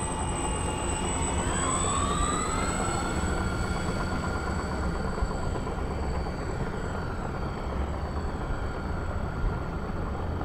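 The propeller motors of a large radio-controlled Hughes H-4 'Spruce Goose' flying boat model on its takeoff run from the water. Several tones rise in pitch about a second or two in as it throttles up, then hold steady while it climbs away.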